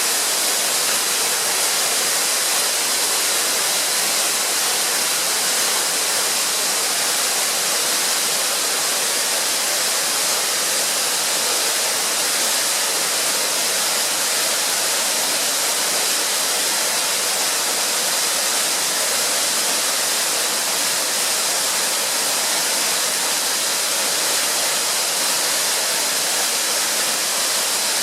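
A tall waterfall, about 50 m high, falling and splashing with a steady, unbroken rushing hiss.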